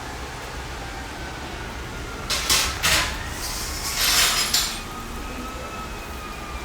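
Steady hiss of a rain and hail storm, with two louder harsh noisy bursts, about two and a half and four seconds in.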